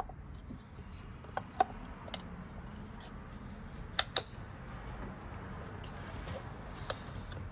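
Scattered sharp clicks and light taps of parts and tools being handled under the hood, two close together about four seconds in, over a low steady hum.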